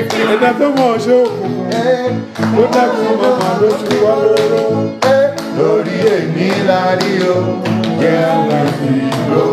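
Jùjú music: singing over guitar and drums with a steady beat.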